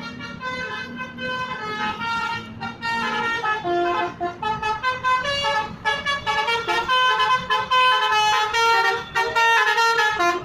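Tour bus's Basuri multi-tone musical horn (telolet horn) playing a tune: quick stepped notes with several tones sounding together, loud, cutting off suddenly near the end.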